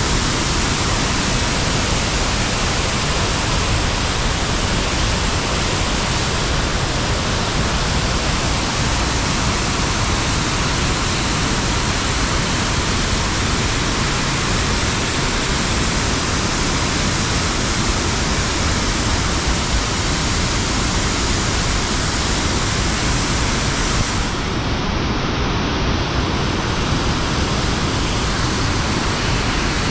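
Heavy rain and muddy runoff water cascading over rock ledges into a flooded stream, a steady rushing noise.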